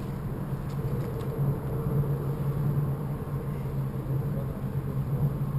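Steady low rumble of traffic crossing the causeway bridge overhead, carried down through the bridge structure.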